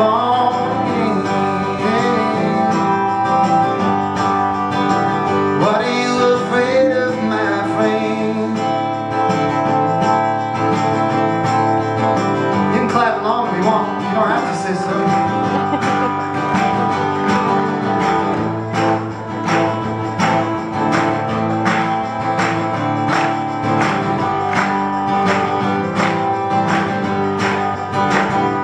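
Live acoustic folk-rock: an acoustic guitar strummed steadily, with a tambourine keeping the beat and a voice singing at times.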